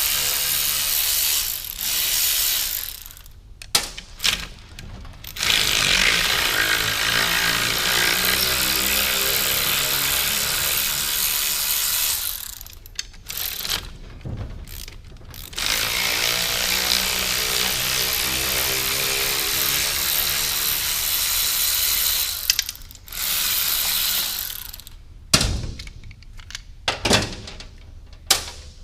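A power tool runs in three long spells of several seconds each, backing out the three 9 mm bolts that hold the clutch slave cylinder on a manual transmission. Sharp clicks and knocks come between the spells and near the end.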